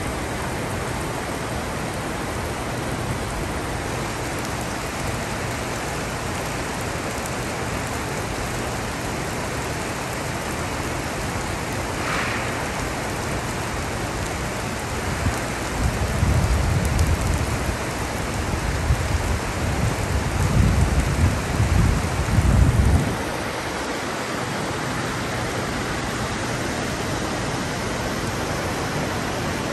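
Fast-flowing floodwater and rain making a steady rushing hiss. Low rumbles come and go for several seconds a little past the middle.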